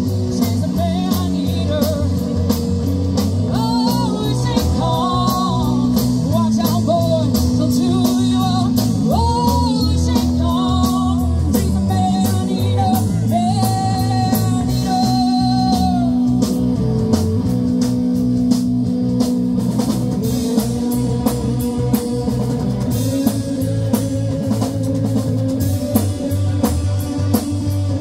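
Live rock band playing: a lead vocal over electric guitar, bass, keyboards and drum kit, with the voice dropping out a little past halfway for an instrumental stretch carried by the drums and guitars.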